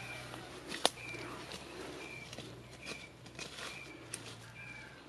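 A knife striking into the leaf litter and soil at the base of a bamboo clump, one sharp knock about a second in and a few lighter clicks, while a forest bird gives short, high calls about once a second.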